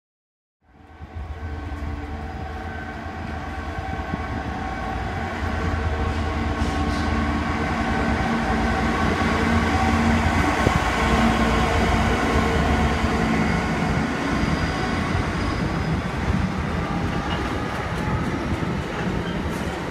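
Freightliner Class 66 diesel locomotive 66553, its two-stroke EMD V12 engine running with a steady drone as it passes hauling a container train, growing louder over the first several seconds, then the container wagons rolling by. The sound cuts in abruptly about a second in.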